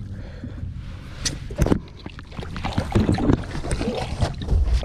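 Water splashing and slapping against a boat hull as a hooked cobia thrashes at the surface beside it, with scattered knocks and bumps.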